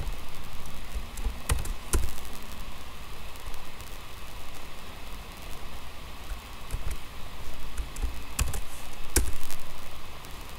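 Clicks of a computer mouse and keyboard over a steady background hiss. The loudest come in two pairs, one about a second and a half in and one near the end.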